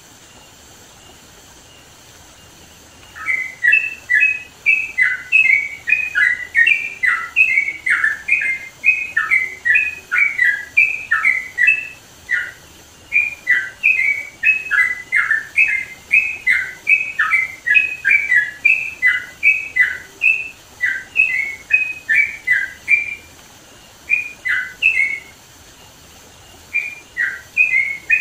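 Yellow-vented bulbul singing loudly: a fast, bubbly chatter of short rising and falling notes, several a second. It starts about three seconds in and pauses for a few seconds near the end before starting again, over a faint, steady high hiss.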